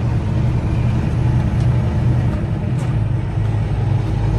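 Semi truck's diesel engine running, heard from inside the cab while the truck moves slowly, its note dropping lower about three seconds in.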